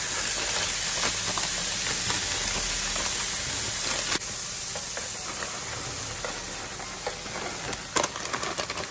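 Thawed cauliflower rice sizzling as it is poured into a hot pan of oil and minced garlic, a steady hiss that is strongest for about the first four seconds and then eases off a little. A sharp tap comes near the end.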